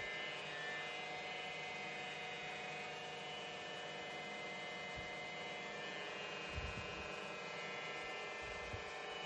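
Steady mechanical hum carrying several steady tones, with a few soft low knocks about five seconds in, a cluster a little later, and one more near the end.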